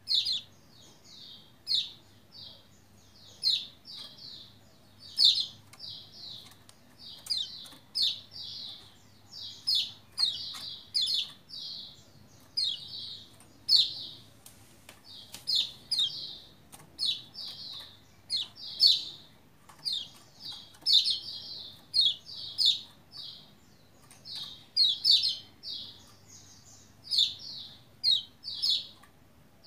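Lombok white-eye (pleci, kecial kuning) calling in quick clusters of two to four short, high chirps, a cluster about every second. A white-eye in full song like this is used as a lure to make other white-eyes sing back.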